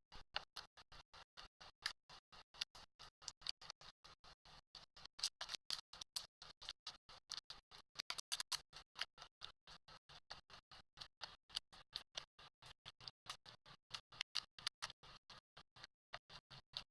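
Slime being squished and poked by hand, making a quick, uneven run of small sticky clicks and pops, about four or five a second.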